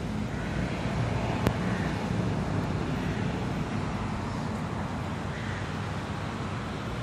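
Steady low rumble of outdoor ambience with wind on the microphone, and one sharp click about a second and a half in.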